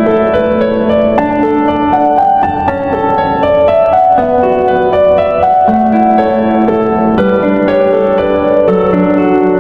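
Background music: gentle instrumental with plucked, harp-like and piano notes played in a steady flowing run.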